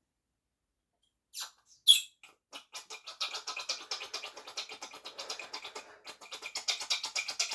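Two sharp clicks of RC shock parts being handled, then a fast run of short squeaky strokes, about six a second, as a shock part is worked by hand.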